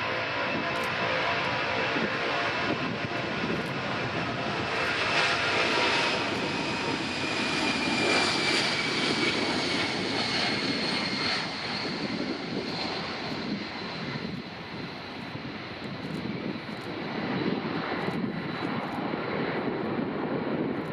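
Jet engines of a Boeing 747SP running: a continuous rushing noise with a high whine that slowly falls in pitch.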